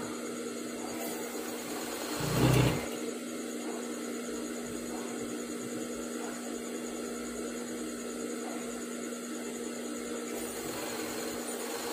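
Sewing machine's electric motor humming steadily, with one brief louder burst about two and a half seconds in.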